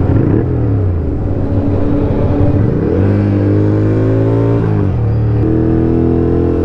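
Ducati motorcycle engine heard from the rider's seat. Its pitch falls off at first, then rises as the bike accelerates, with a brief dip for a gear change about four and a half seconds in before it pulls on at a higher pitch.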